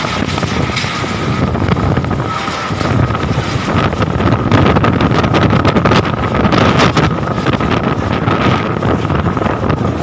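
Storm-force gusting wind blowing over the phone microphone, a loud rushing noise with scattered knocks and rattles, growing louder a few seconds in.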